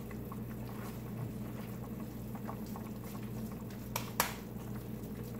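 Raw ground-beef mixture being pressed and patted into a patty between the hands, soft wet squishing, over a steady low electrical hum. Two sharp clicks about four seconds in.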